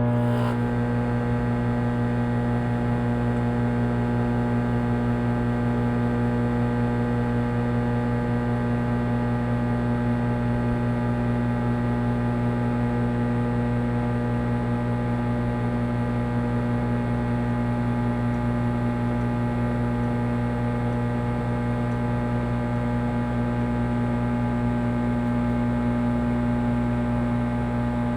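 Microwave oven running: a steady, unchanging electrical hum with a low drone.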